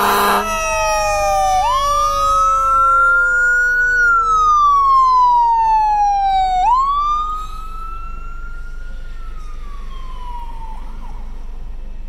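Fire apparatus sirens wailing, the main tone sweeping slowly up and down twice while a second, lower siren tone glides steadily downward beneath it. A loud horn blast cuts off about half a second in. The sirens drop in loudness about seven and a half seconds in and fade out shortly before the end.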